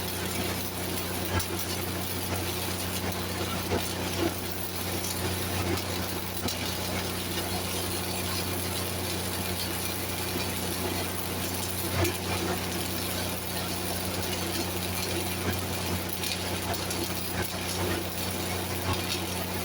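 Engine-driven Lincoln welding machine running at a steady drone, with the even frying crackle of a welding arc over it and a few sharper pops, the loudest about twelve seconds in.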